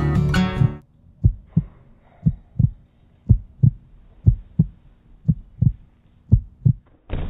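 Heartbeat sound effect: six low double thumps, lub-dub, about one a second, after acoustic guitar music cuts off about a second in.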